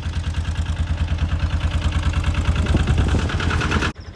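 Narrowboat engine running with an even, rhythmic beat, growing a little louder, then dropping suddenly to a quieter run near the end.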